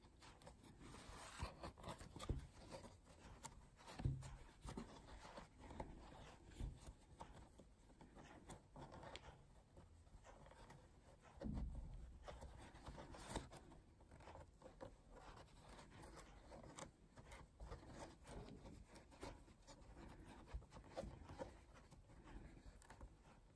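Near silence with faint rustling and small scratchy clicks of a crochet hook being worked through yarn by hand, with a few soft bumps about four, eleven and thirteen seconds in.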